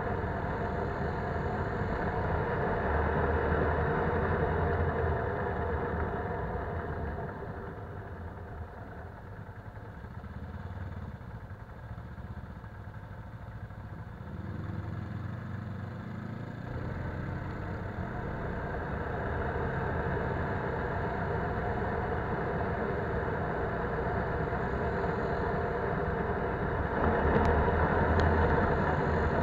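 Polaris Sportsman 570 ATV's single-cylinder engine running on a dirt trail. It eases off from about seven seconds in, picks up again from about fifteen seconds with a slight rise in pitch, and is loudest near the end.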